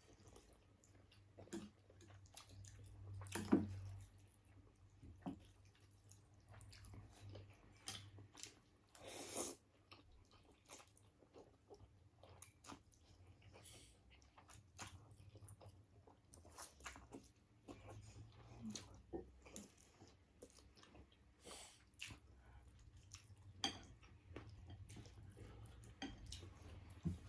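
Faint close-up eating sounds: chewing, with scattered short clicks and smacks over a low steady hum.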